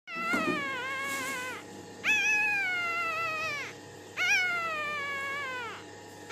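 Five-day-old newborn puppy crying: three long, high-pitched, wavering cries, each sliding down in pitch, about two seconds apart.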